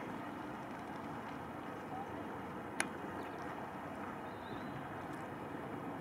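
Steady outdoor background hiss and rumble, with one sharp click about three seconds in.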